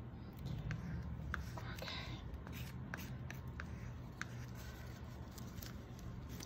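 Paint cups being handled: a scatter of light clicks and rubbing of plastic cups, over a steady low hum.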